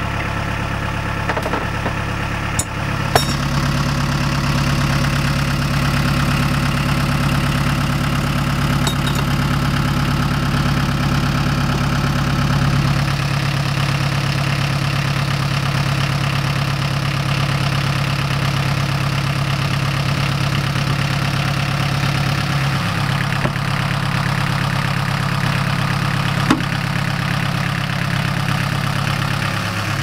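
Narrowboat's inboard marine engine idling steadily, with a couple of sharp clicks about three seconds in and its tone shifting slightly twice.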